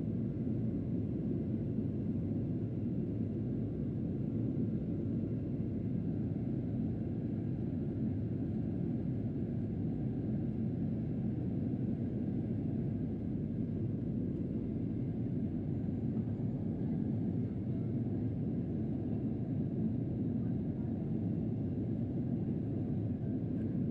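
Steady low rumble of cabin noise inside a Boeing 737-800 airliner: its engines and the air around the fuselage. It holds an even level throughout, with no changes in pitch or power.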